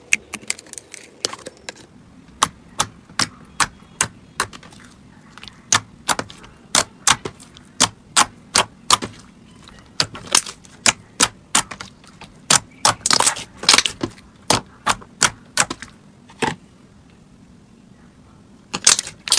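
Slime being pressed and poked, giving a series of sharp clicking pops, about two or three a second, with a fast cluster about two-thirds of the way in and a short pause near the end.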